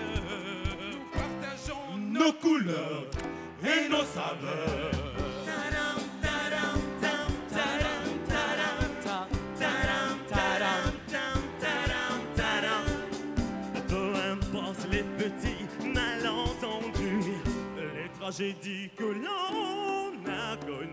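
Live performance of an upbeat song: male vocalists singing into microphones over backing music with a steady drum beat.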